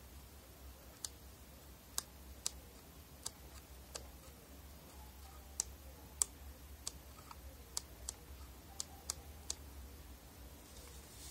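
Mode dial of a Canon PowerShot SX60 HS camera turned by hand, clicking through its detent positions: about a dozen sharp, separate clicks at irregular spacing.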